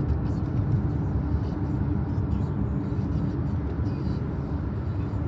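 Steady engine and road rumble of a car driving at speed, heard from inside the cabin.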